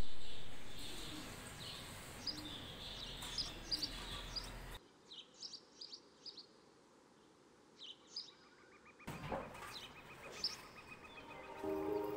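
Small birds chirping over a steady outdoor background hiss, in short high calls repeated throughout. The background hiss drops away for a few seconds partway through and then returns. Near the end, soft music with sustained notes begins.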